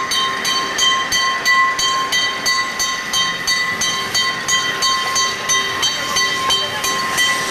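Level-crossing warning bell ringing fast and evenly, about three to four strokes a second, as a narrow-gauge steam train runs over the crossing, the locomotive and its coaches rumbling past.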